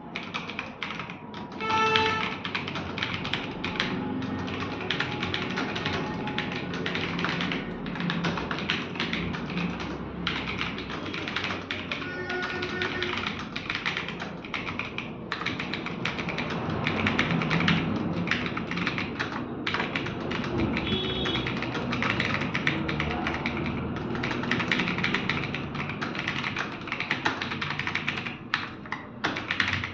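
Fast, continuous typing on a computer keyboard, keystrokes clattering without pause, with background music underneath.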